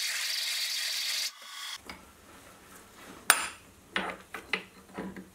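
Twist drill cutting into a steel block, a steady hiss that stops about a second in. Then a few sharp clicks as the drilled metal parts are handled.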